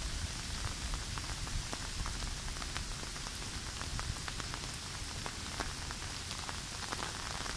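Steady rain, with many sharp drop hits close to the microphone and a low rumble underneath.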